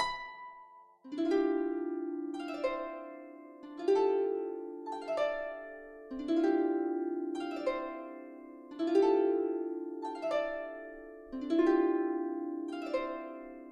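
Background music on a digitally played Celtic harp: plucked notes and chords that ring and fade, a new chord about every second and a quarter.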